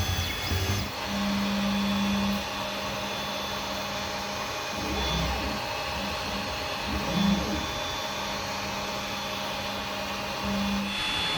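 Creality Ender 5 3D printer running, its stepper motors driven by the quiet v1.1.5 motherboard: a low motor hum that comes and goes and shifts with each move, over the steady whir of the printer's fans.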